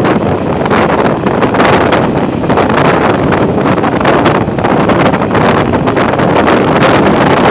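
Strong wind buffeting the microphone on a fast-moving passenger train, over the train's steady running noise.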